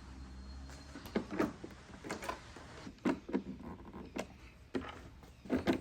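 Small screws being driven with a screwdriver to fasten the window switch unit back in place. Scattered light clicks and taps come at irregular intervals, with a faint low hum in the first second.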